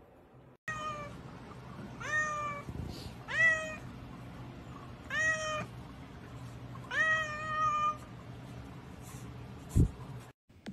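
Domestic cat meowing five times in a row, each meow rising then levelling off, about one to two seconds apart, the last one drawn out longer. A single thump near the end.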